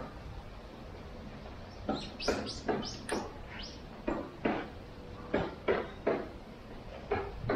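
Footsteps: runs of short, sharp steps, about three a second, over a low steady street rumble.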